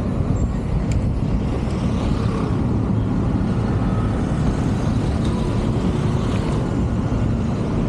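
Steady rumble of a car driving along a city road, its engine mixed with tyre and wind noise.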